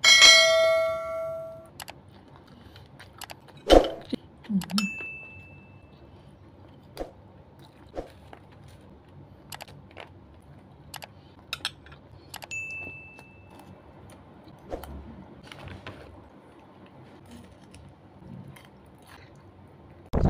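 Close-up eating sounds of a person eating rice and chicken by hand: chewing and mouth sounds with scattered small clicks and taps. A bell-like notification ding rings out at the very start and fades over a second or so, and two short high beeps sound later.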